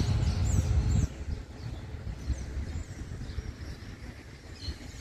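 A motor vehicle's engine passing close by, loud for the first second and then cutting away to a quieter street hum. Small birds chirp several times with short falling notes.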